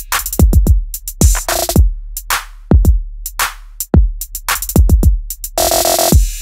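Electronic music with a drum-machine beat: deep kick drums and sharp hi-hat and snare hits in a syncopated pattern, with a short held synth chord near the end.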